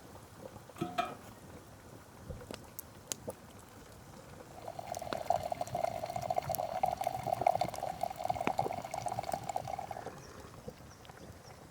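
Tea being poured into a cup in a steady stream for about five seconds, after a few light clicks.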